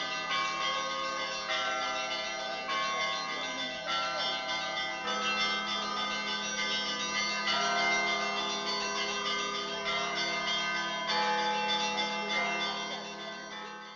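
Russian Orthodox church bells ringing: several bells of different pitches struck in a changing pattern over a steady low tone, fading out near the end.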